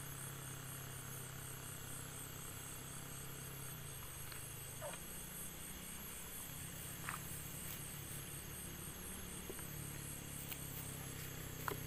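Insects trilling in a fast, even, high-pitched pulse over a low steady hum, with a few faint clicks.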